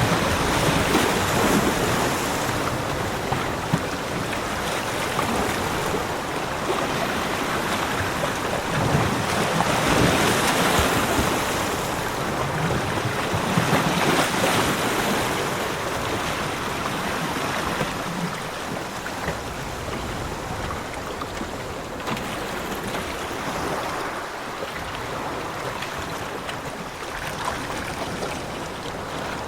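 Ocean surf washing onto a beach, a steady rush that swells in surges as waves break, loudest about ten and fourteen seconds in and quieter toward the end.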